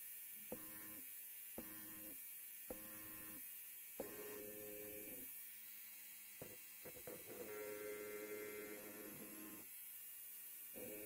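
Electric hair clipper buzzing in short passes: about one half-second buzz a second at first, each starting with a click, then two longer passes of a second or two.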